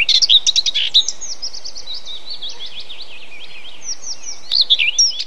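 Several birds chirping and calling at once, many quick rising and falling notes overlapping, over a steady high hiss. The chirping is densest in the first second and picks up again near the end.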